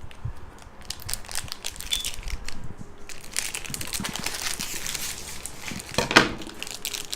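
Plastic toy packaging crinkling and crackling as a blind-pack compartment is pulled open by hand, with a louder rustle about six seconds in.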